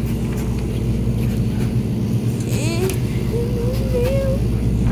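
Commercial tumble dryers running with a steady low hum, with faint voices in the background.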